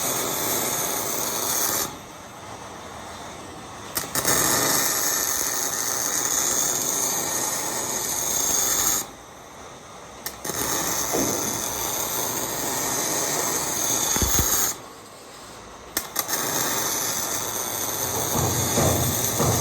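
MIG welding arc crackling and buzzing steadily in runs of several seconds, stopping three times for a second or two between welds.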